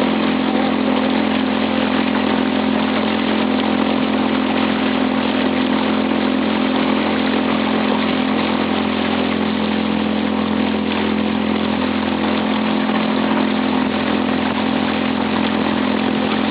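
Vehicle engine running steadily, its hum holding one even pitch throughout.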